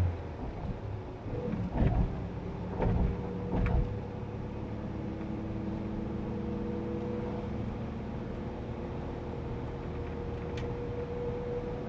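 Engine of a GAZ Sobol van running steadily, heard from inside the cab, with three heavy thumps about two to four seconds in and a light click near the end.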